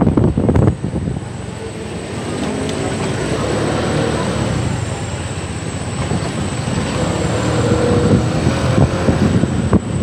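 Steady vehicle engine and road noise from riding along a busy street, with a faint engine tone that rises and falls. Wind buffets the microphone in the first second.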